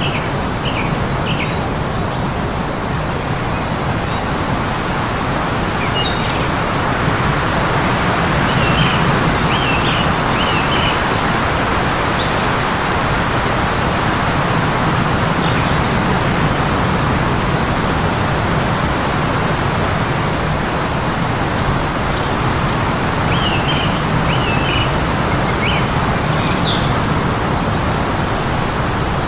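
Heavy blizzard wind blowing steadily, a broad rushing noise that swells a little about a third of the way in. Short high bird chirps come in small clusters at the start, around a third of the way in, and again near the end.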